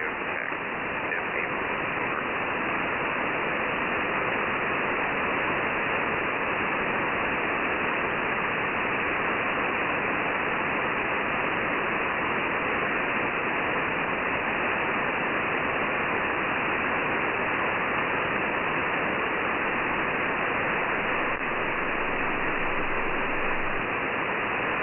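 Steady hiss of static from a shortwave receiver tuned to an idle HF single-sideband channel on 11175 kHz, with nobody transmitting.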